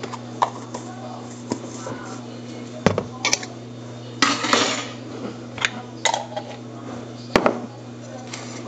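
Kitchen clatter: scattered sharp clinks and knocks of cutlery and dishes, about eight in all at uneven gaps, with a steady low hum underneath.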